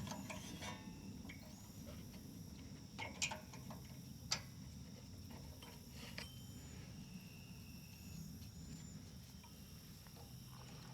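A few faint clicks and taps from small engine parts and wiring being handled while the new ignition coil's wire is routed, over a low steady background hum.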